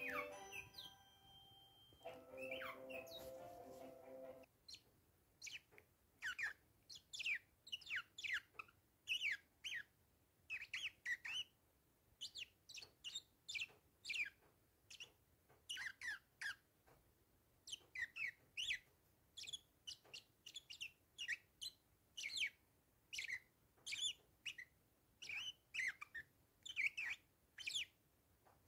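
Bourke's parakeets chirping: a long run of short, downward-sweeping chirps, a couple a second. Music plays for the first few seconds before the chirping starts.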